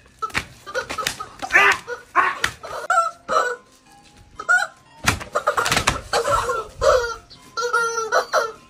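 Yellow rubber screaming-chicken toys squawking again and again as they are squeezed and stepped on, with short sharp strikes among the squawks.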